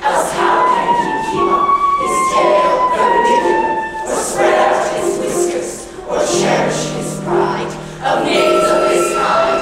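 Large musical-theatre chorus singing together, holding long notes, over an accompaniment of short repeated notes in a steady pulse.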